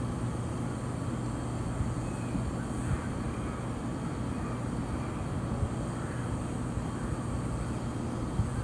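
A steady low rumble with a constant low hum running under it, even in level throughout.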